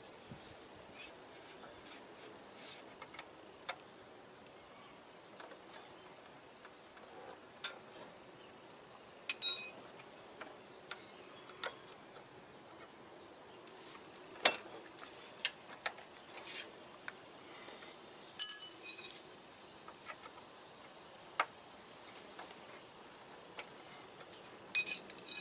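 Scattered light metal clicks and taps from brake caliper parts and tools being handled on a motorcycle's front brake. A few sharp, ringing metallic chinks stand out: about nine seconds in, about eighteen seconds in, and near the end.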